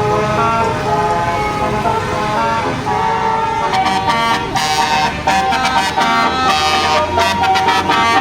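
Bus telolet horn (Basuri multi-trumpet horn) playing a melody: several held notes sound at once and change in steps. From about four seconds in, short sharp blasts come in among the notes.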